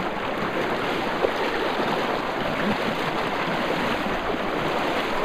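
Shallow river water rushing and splashing in a steady, even rush, with a brief knock about a second in.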